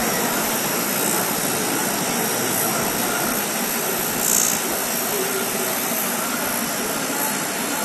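San Jui straight knife grinder's abrasive wheel grinding the edge of a long steel blade as the head travels along it: a steady grinding noise over the machine's running.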